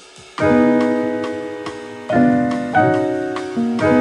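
Background piano music: chords struck a few times, each ringing and slowly fading before the next.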